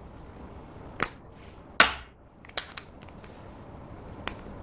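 Plastic lipstick case handled close up: sharp clicks from the cap and tube, with one louder, slightly longer sound just before two seconds in as the cap comes off.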